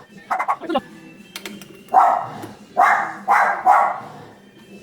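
A dog barking, four loud barks in quick succession starting about two seconds in, after a few fainter yaps.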